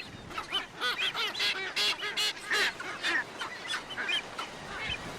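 A flock of sooty terns calling: many short, high, overlapping calls, several a second, thinning out toward the end.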